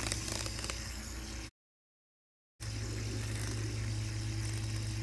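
Handheld fidget spinner whirring steadily on its bearing at speed, over a constant low hum. The sound cuts out completely for about a second midway, then resumes.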